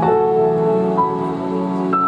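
Slow, gentle instrumental music with long held notes that change about once a second: the backing track for a group gymnastics display routine.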